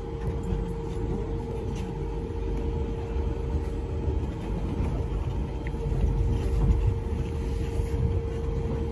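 Monorail car running, heard from inside the cabin: a steady low rumble under a constant whine, swelling slightly about two-thirds of the way through.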